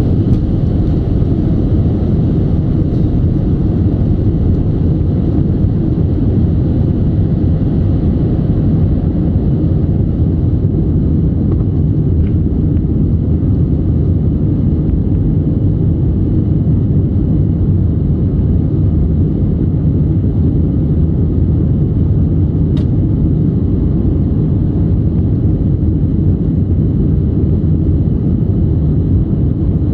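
Cabin noise of a Boeing 737-300 at takeoff power, heard from a window seat over the wing: a steady, deep rumble of its CFM56-3 turbofan engines and rushing air as the jet lifts off the runway and climbs out.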